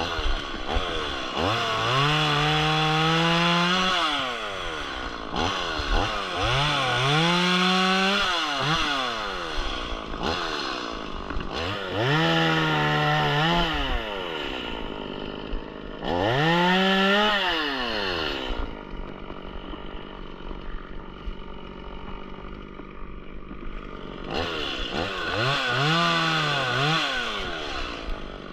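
Stihl MS 180 two-stroke chainsaw revved up to full speed and held there five times, each burst lasting about two seconds before dropping back. It idles between the bursts, with a longer idle before the last one near the end.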